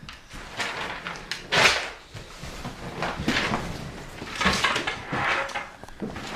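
A string of short scuffing and knocking noises of things being handled, the loudest about one and a half seconds in.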